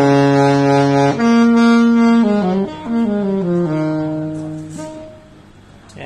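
Alto saxophone with a J&B Custom Cheetah I 7 mouthpiece playing a phrase: a low held note, a jump up to a held note, then a few notes stepping down to a long low note that fades out near the end.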